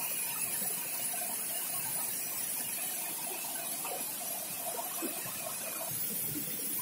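Steady rushing of water falling into a shallow rocky stream.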